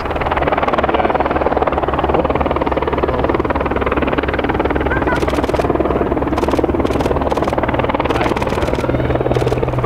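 De Havilland Canada Dash 8 Q400 turboprop airliner at takeoff power during its takeoff roll and lift-off: its two engines and propellers make a loud, steady drone with a fast throb.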